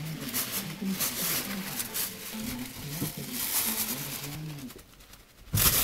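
Low, wavering voice sounds broken into short stretches, over rustling from close handling, with a loud knock near the end.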